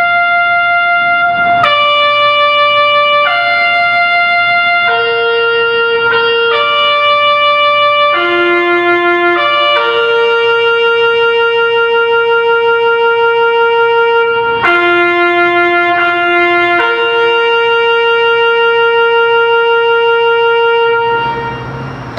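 Bugle playing a slow funeral call for the dead: one line of long, held notes that move only among the bugle's few natural notes, with a long low note around the middle. The call ends about a second before the close.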